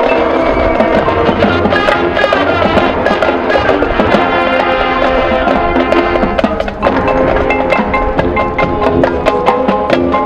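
Marching band playing a field show: sustained brass chords over drumline and front-ensemble mallet percussion, with many quick percussion strikes. The sound thins briefly about seven seconds in, then the full band comes back in.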